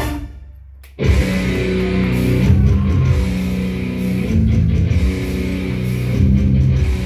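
Heavy rock music with distorted electric guitar, which fades to a brief near-quiet gap and then comes back in suddenly and loud about a second in.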